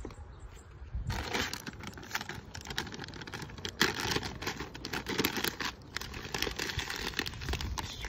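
A plastic bag of wild bird seed crinkling and rustling as it is pulled open and handled. The crackling starts about a second in.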